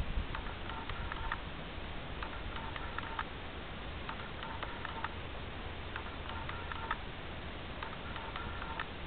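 Electronic beeper sounding a short run of quick tones and clicks, repeating about every two seconds, over a faint low hum.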